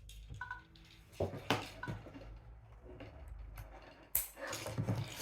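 Handling clicks and knocks from working a handheld network cable tester and its cable plugs. A few sharp clicks stand out, the loudest about a second and a half in and just after four seconds.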